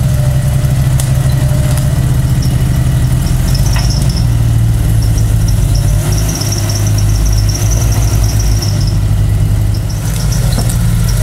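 A lifted off-road 4x4's engine running low and steady as the truck crawls slowly over rough ground. A thin, high squeal comes and goes from about two seconds in until near the end.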